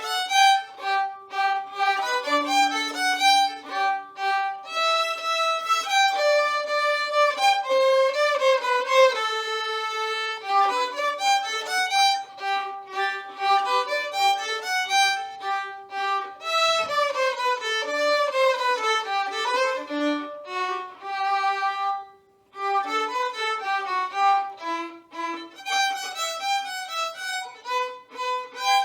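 Violin music: a bowed violin playing a melody of separate notes, at times with two notes sounding together. The playing breaks off briefly about three quarters of the way through, then goes on.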